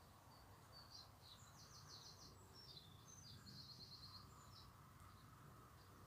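Faint songbird singing at dawn: a run of high chirps with two rapid trills in the middle, over a faint steady background hum.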